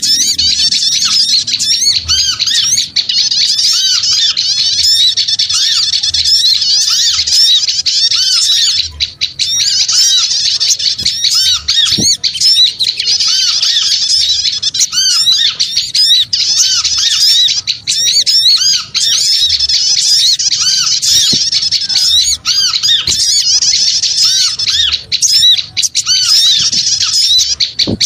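Lure recording of a flock of small birds chattering noisily: many high, short chirps and squeaks overlapping without pause, easing off briefly twice.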